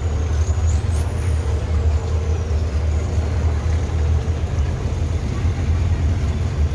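Three Honda 250 outboard engines on a speedboat running under way, a steady low rumble with rushing noise over it.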